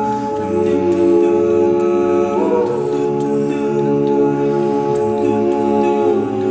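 Male a cappella group singing held chords in close harmony on wordless syllables, with no lyrics. The chord shifts about two and a half seconds in and again near the end.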